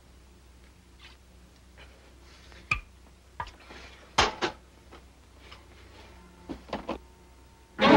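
Clinks and knocks of bottles and food containers being handled in an open refrigerator, scattered through the quiet, with a few sharper knocks in the middle and near the end.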